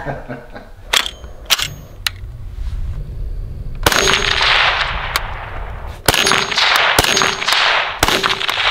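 A P90-style bullpup carbine firing: after a few sharp clicks, a first shot about four seconds in, then a quick string of semi-automatic shots in the last few seconds, each followed by a rolling echo across the field.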